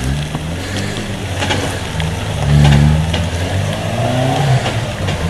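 Four-wheel-drive vehicle's engine revving under load as it climbs a muddy, rutted track, with the revs rising and falling about two and a half seconds in and again near the end.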